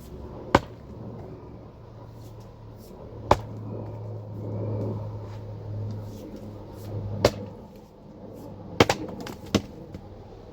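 Axe striking firewood as it is split: about five sharp knocks, a few seconds apart at first and closer together near the end, over a low steady hum.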